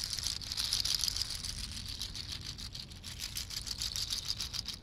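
Handheld rattle shaken quickly and steadily close to a binaural dummy-head microphone, a fast even clatter of about ten shakes a second. It is carried from one side of the head to the other, so the sound travels from left to right.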